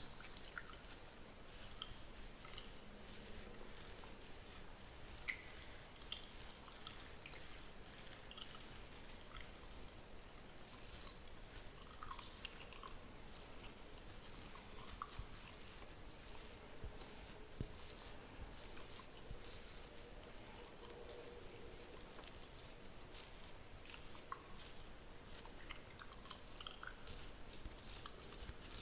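Fingernails scratching through a beard close to the microphone: a continuous run of soft, crackly, rasping scratches with occasional sharper clicks.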